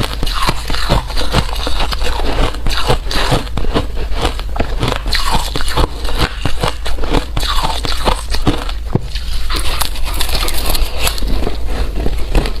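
Close-up crunching of hard ice being bitten and chewed, a dense run of sharp, irregular cracks and crunches.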